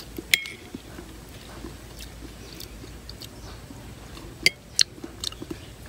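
Metal spoon clicking against a plate while cutting into a soft gelatin dessert: two sharp clicks at the start and two more about four and a half seconds in, followed by a few lighter ticks.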